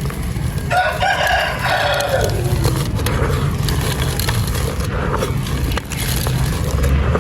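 Dry sand-cement and clay pot crumbling, a dense low gritty crunching throughout. About a second in, a rooster crows once in the background, a call of about two seconds that drops in pitch at the end.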